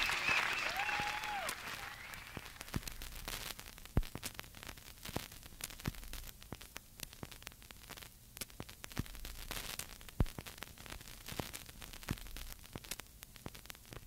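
Cassette tape hiss with scattered sharp clicks in the silent gap between tracks of a bootleg tape played on a Technics RS-TR373 deck. A noisy tail fades out over the first couple of seconds.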